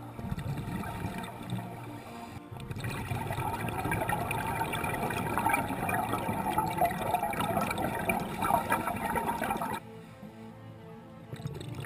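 Slow background music with sustained tones. From about three seconds in, scuba exhaust bubbles gurgle and crackle over it, then stop abruptly near the end.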